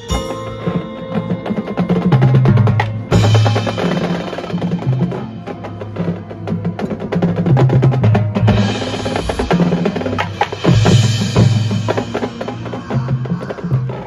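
Marching band percussion playing a fast, dense rhythmic passage: drums together with front-ensemble mallet percussion, over sustained low bass notes.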